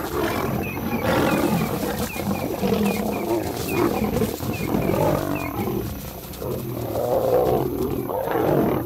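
Lions fighting at close quarters: two lionesses and a male lion roaring at each other continuously, with repeated loud surges.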